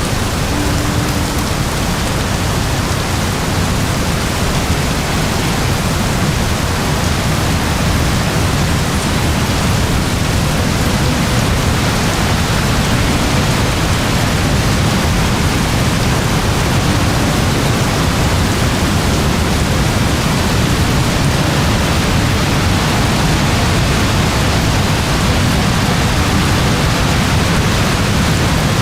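Very heavy rain falling steadily, a dense even hiss with a deep low rumble underneath and no change in intensity.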